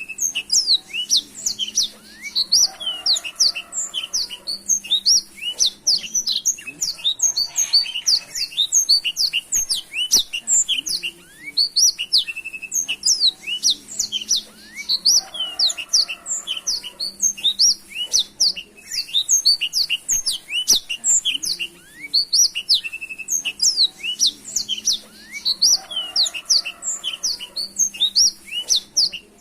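Black-throated canary (blackthroat) singing a long, unbroken song of quick, high twittering notes and rapid trills.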